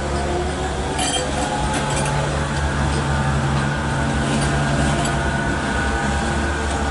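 Manchester Metrolink M5000 tram moving off across the trackwork, its running gear giving a steady hum. There is a short metallic clink about a second in.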